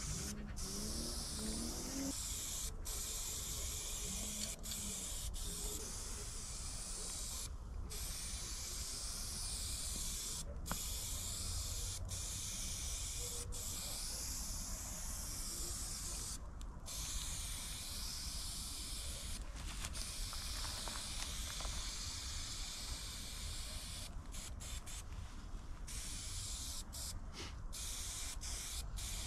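Aerosol spray paint can hissing as paint goes onto the wall, in long sprays broken by short pauses every few seconds, over a steady low rumble.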